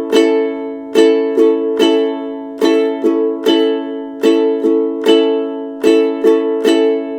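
Ukulele strumming an A major chord over and over in a down, down, up pattern, the three strums in each group coming about every 0.8 s.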